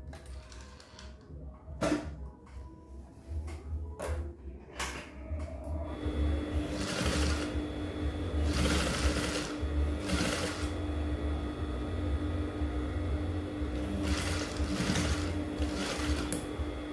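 A few sharp clicks and knocks, then from about six seconds in an electric sewing machine running steadily, stitching with a constant motor hum.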